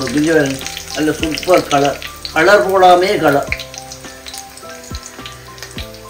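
Chicken 65 pieces and curry leaves deep-frying in hot oil in a wok, sizzling steadily. For the first half or so a louder melodic, singing-like voice or music rises and falls over the sizzle, then gives way to held steady tones.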